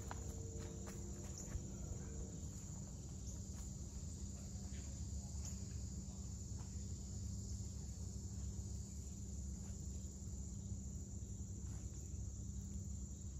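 Steady woodland ambience: an even, high insect chorus over a low rumble, with a few faint footsteps on wood-chip mulch in the first two seconds.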